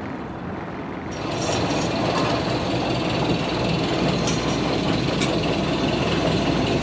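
Westsail 42 sailboat's inboard diesel engine running steadily while the boat motors slowly; it grows louder about a second in.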